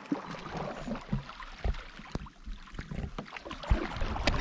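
Canoe paddle strokes: blades dipping and pulling through the water with splashes and drips, and a few low knocks, the loudest near the end.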